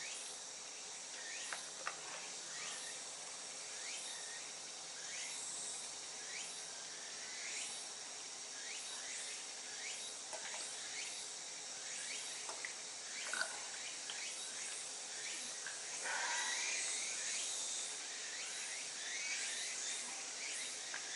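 Faint outdoor background: a steady high hiss with many short, repeated chirps and a few small clicks. A broader swell of noise comes about three-quarters of the way through.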